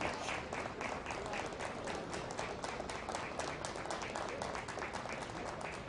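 Audience applauding: dense, steady clapping from a crowd of spectators.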